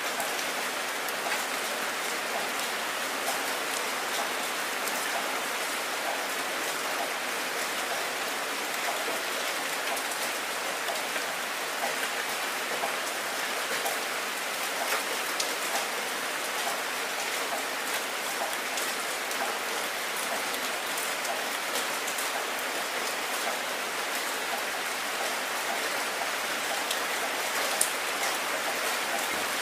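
Heavy rain pouring steadily onto a wet surface, a constant hiss of splashing with individual drops ticking through it and one louder drop near the end.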